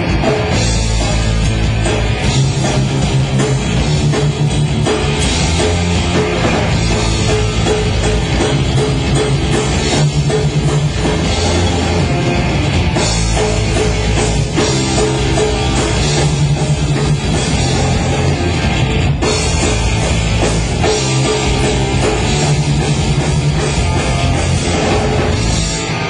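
Punk rock band playing loud and without a break: distorted electric guitars and a drum kit. Picked up by a cellphone microphone, with poor sound.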